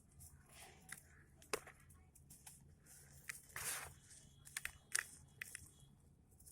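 Dry red sand clumps crumbling with gritty crunches and a few sharp crackles, including one longer grainy crumble about halfway through.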